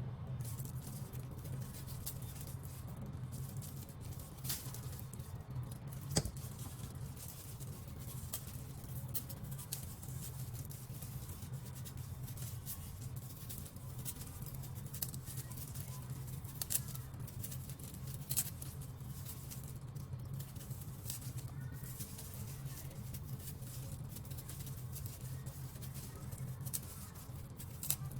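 Taro corms being peeled by hand with a blade: irregular light scraping and small clicks, with a few sharper ticks, over a steady low hum.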